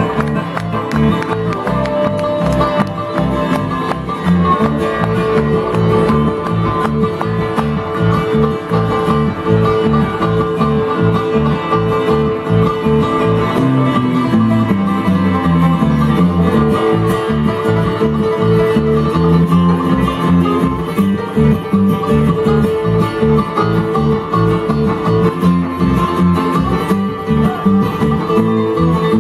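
Bluegrass band playing an instrumental tune live: banjo and guitar picking over a steady plucked bass line.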